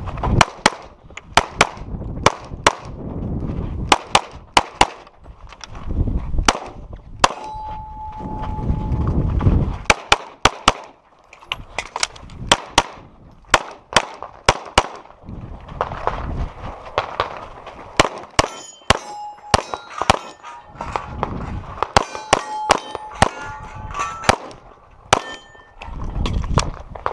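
A Glock pistol firing dozens of shots in quick strings, with steel targets clanging and briefly ringing as they are hit.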